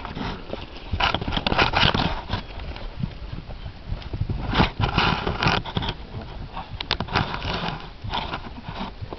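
Hoofbeats of a ridden Thoroughbred horse moving over grass, coming irregularly.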